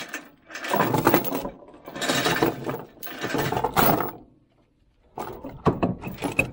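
Rusty steel tie-down chain rattling and clinking as it is pulled loose and piled on a wooden trailer deck, in four jangling spells with a short pause before the last.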